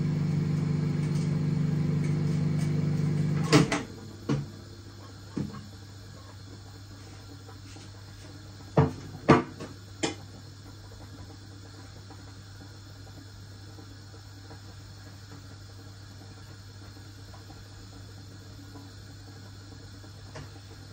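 A steady kitchen-appliance motor hum cuts off with a click about three and a half seconds in. A few scattered knocks and clicks of things being handled follow, the loudest a cluster of three around nine to ten seconds in, over a faint low hum.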